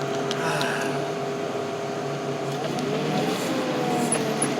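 Tractor engine running steadily, its pitch wavering slightly down and up about three seconds in.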